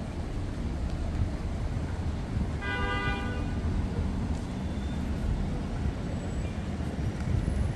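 Steady low street and traffic rumble, with a vehicle horn beeping once, briefly, about three seconds in.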